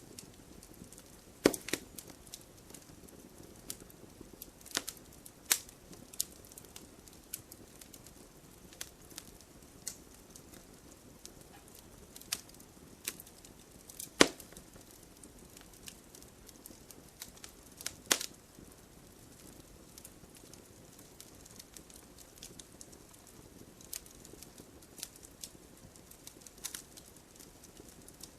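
Campfire burning wood, crackling: a low steady hiss with scattered sharp pops and snaps, the loudest about a second and a half in, about fourteen seconds in and about eighteen seconds in.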